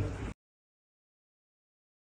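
Silence: a brief tail of background sound cuts off abruptly about a third of a second in, and nothing at all follows.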